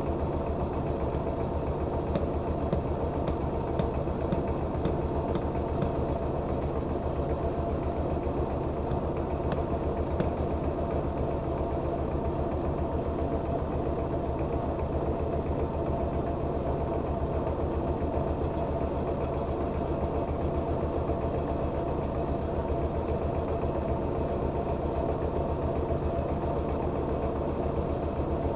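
Belt-driven rice milling machine running steadily under its engine, with a fast, even pulsing and a few faint clicks.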